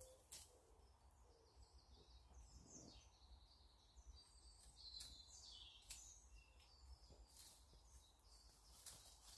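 Near silence: faint woodland ambience with small birds chirping now and then, and a few faint clicks or snaps.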